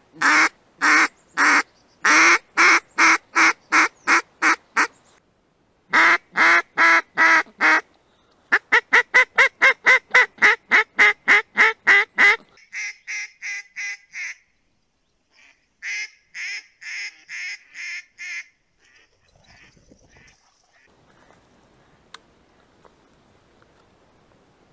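Hand-held rubber duck call blown to imitate a hen mallard's quacking, used to call in drakes: several runs of loud, short quacks, the fastest about four a second, with softer runs after about twelve seconds and then only faint background near the end.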